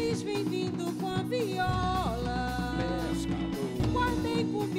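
A live band performing a song: a voice singing a melody over bass, guitar and drums.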